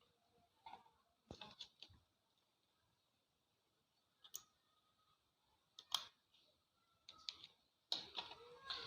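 Scattered small plastic clicks and handling noises amid near silence, from a fiber-optic fast connector and an optical power meter being handled and plugged up for a loss test.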